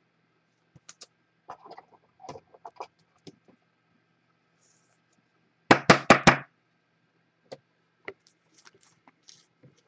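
About five sharp knocks in quick succession on a hard surface about six seconds in, with scattered light clicks before and after.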